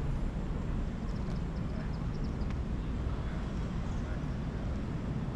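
Steady low outdoor rumble, with a few faint, short high chirps about one to two and a half seconds in.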